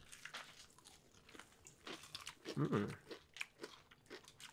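Crunchy fried chicken wings being bitten and chewed: a run of short crisp crunches from several eaters close to the microphones, with a brief hum from one of them partway through.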